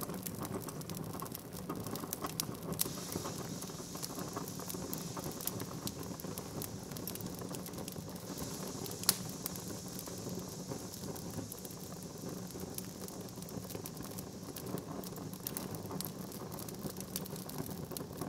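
Steady crackling patter: a dense run of small clicks over a soft hiss, with a faint low hum beneath and one sharper click about nine seconds in.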